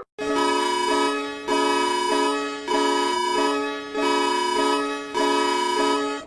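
Emergency alert alarm tone: loud electronic chords of several steady tones, alternating between two chords in a pattern that repeats about every 1.2 seconds. It starts just after a brief gap, right where a faster pulsing alarm cuts off.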